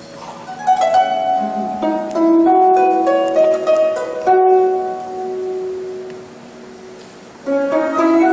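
Symphony orchestra playing a song's introduction: a melody of plucked string notes with held notes underneath. The music thins out about six seconds in, then the orchestra comes back in fuller near the end.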